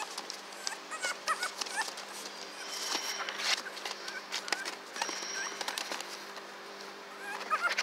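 Yorkshire terrier puppies playing, giving short high squeaks and whimpers, mostly about one to two seconds in, over the scratching and rustling of newspaper under their paws.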